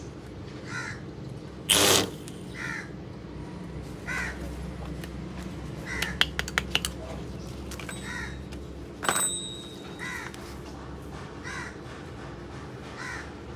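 Crows cawing repeatedly, short calls about once a second. A loud short noise sounds about two seconds in, and a quick run of sharp clicks comes around the middle.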